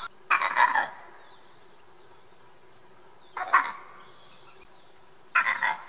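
Vervet monkey calling: three short, loud calls about two and a half seconds apart, over a steady low hum.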